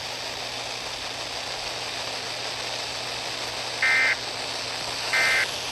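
Steady broadcast hiss, then two short bursts of Emergency Alert System end-of-message data tones about a second and a half apart, starting about three and a half seconds in. These are the digital squawks that mark the end of the alert message.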